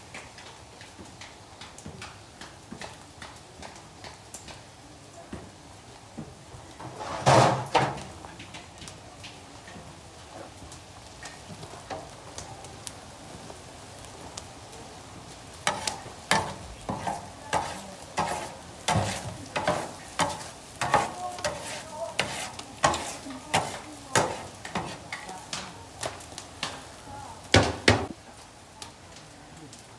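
A large metal skimmer stirring and turning rice in a big steel cauldron over a wood fire, knocking and scraping against the pot in a run of sharp strikes from about halfway on. There is one loud clatter about seven seconds in and another near the end, over a steady hiss of steam.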